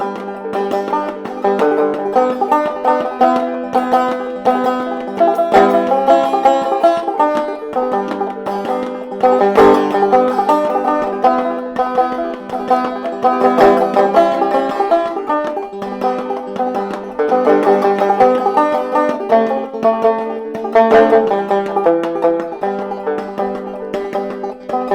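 Mulheron banjo played clawhammer style: a steady, continuous run of plucked notes with a percussive strike on each.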